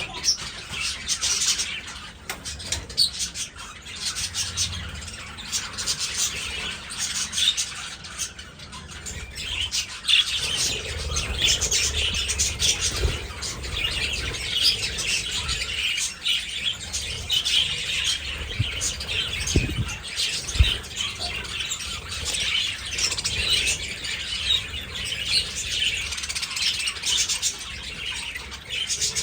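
A flock of budgerigars chattering and chirping nonstop in an aviary, a dense layer of many overlapping high warbling calls, with a few brief low thumps about halfway through.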